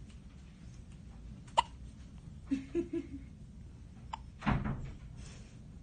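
Day-old newborn baby hiccuping: one sharp hiccup about a second and a half in, a few soft little baby sounds around three seconds, and a duller bump near the end.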